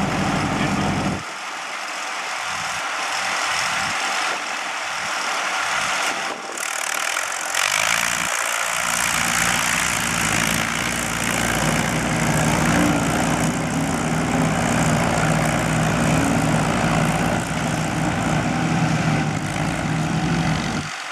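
Allis-Chalmers farm tractor engines running under load as one tractor tows another, hitched to a pull-type combine, through mud. The low engine drone fades for several seconds about a second in, then comes back strongly and holds steady.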